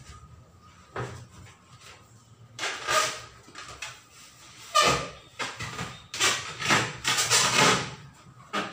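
Large latex balloon being squeezed, rubbed and sat on, giving irregular squeaks and rubbing noises. The loudest starts sharply about five seconds in.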